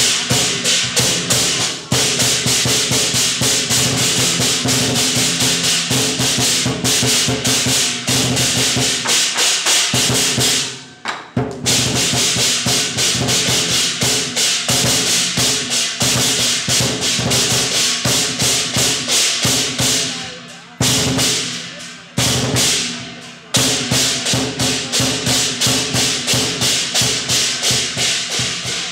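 Chinese temple ritual percussion: a drum with gongs and cymbals beaten in a fast, steady beat of about three strokes a second over ringing gong tones. The beat breaks off briefly about eleven seconds in and again around twenty-one seconds in, then picks up again.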